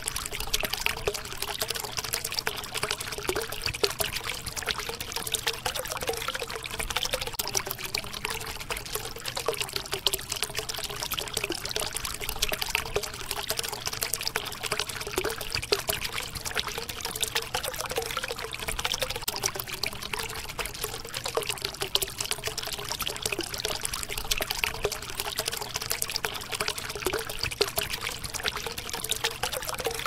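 Running water trickling and splashing steadily, with a continuous patter of small gurgles and drips.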